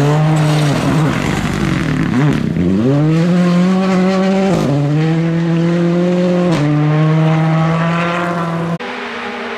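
Ford Fiesta rally car's engine at full effort on gravel: the engine note drops as it slows into a corner, then climbs hard as it accelerates out, with quick upshifts about four and a half and six and a half seconds in. Near the end the sound cuts off abruptly to a quieter, more distant engine.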